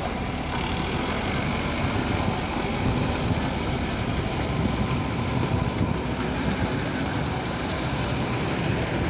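JCB backhoe loader's diesel engine running steadily, a continuous low rumble with no distinct knocks.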